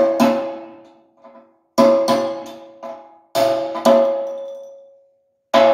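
Hammer blows on a steel punch driving the old roll pin out of an excavator bucket tooth, each blow ringing metallically and dying away. The strikes come mostly in pairs, about every second and a half, with a couple of light taps between.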